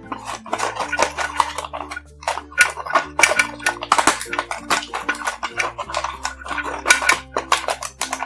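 Fluffy slime being squished and mixed by hand, making many quick sticky clicks and crackles.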